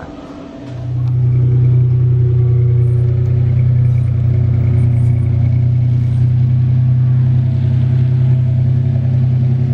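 A vehicle engine running steadily, a low even hum at one unchanging pitch that starts a little under a second in.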